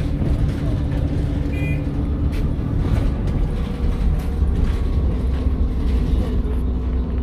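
Onboard sound of an Alexander ALX400 Dennis Trident double-decker bus: its diesel engine running with a steady low drone, with scattered clicks and rattles from the bus and a short high squeak about one and a half seconds in.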